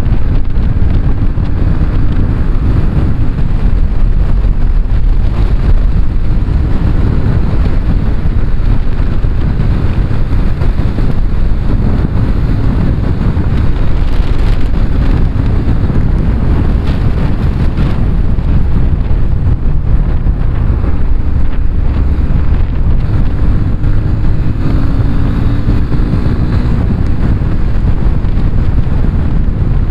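Heavy wind buffeting on the microphone of a Yamaha FZ25 motorcycle at highway speed. Beneath it, the single-cylinder engine with its stock exhaust runs steadily.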